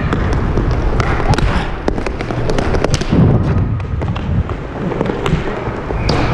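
Inline hockey play up close: a steady rumble of skate wheels rolling on the rink floor, broken by many sharp clacks and knocks of sticks and puck.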